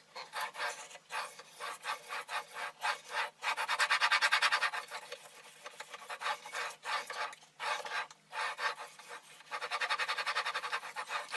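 A 1200-grit sharpening stone on a guided fixed-angle sharpening frame, scraping back and forth along a knife edge in short, repeated strokes. The strokes come quickest and loudest about four seconds in, and again near the end.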